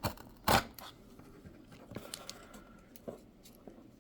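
Handling a mailed package: a sharp tap or click about half a second in, then faint scratching and rustling of paper and packaging as it is worked open.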